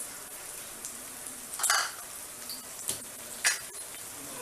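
Onion-tomato masala sizzling in oil in a frying pan with a steady hiss. Two short scraping knocks are heard, about halfway through and near the end.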